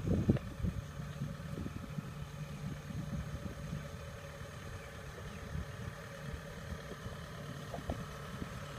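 Diesel engine of farm machinery running steadily, with a few louder knocks in the first half-second.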